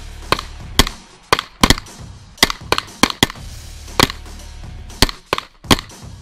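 Semi-automatic pistol firing a string of shots, about a dozen at irregular spacing, some in quick pairs, with a steady low rumble of wind on the microphone between them.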